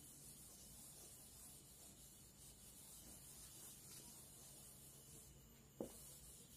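Faint rubbing of a block duster wiping marker off a whiteboard, with one short knock near the end.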